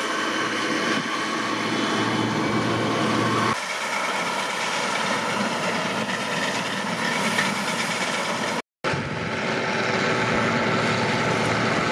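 Combine harvester running in the field while harvesting rapeseed: a steady drone from the engine and threshing machinery. The sound changes abruptly about three and a half seconds in and again near nine seconds, with a brief dropout at the second change.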